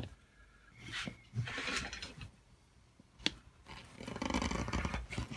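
Freshly sharpened pocket knife blade slicing through a reinforced rubber hose: two rough scraping cutting strokes, the second longer, with a single sharp click between them.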